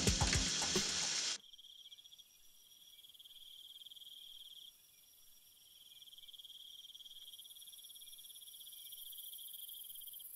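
Music cuts off suddenly a little over a second in, giving way to quiet, continuous chirring of crickets: a steady high trill, joined near the middle by a second, even higher one.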